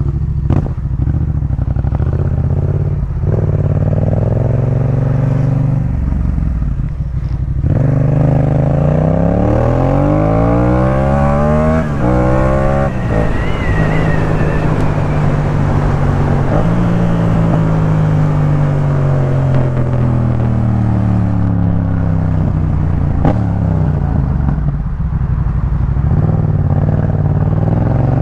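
Yamaha MT-07's parallel-twin engine through a Jeskap K4 full exhaust while riding. It picks up hard through the gears about a third of the way in, with quickly rising pitch, then slows with a long falling note and picks up again near the end.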